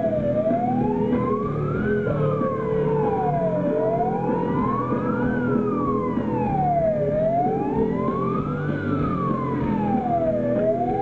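Siren sound played through a concert PA, wailing slowly up and down about every three and a half seconds, over a steady held drone.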